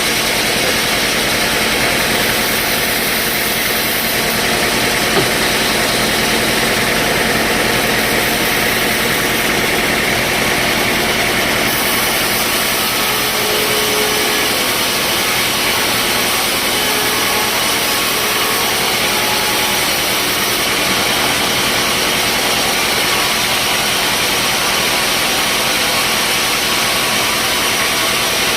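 Sawmill machinery running steadily, a constant loud engine-like drone with no breaks.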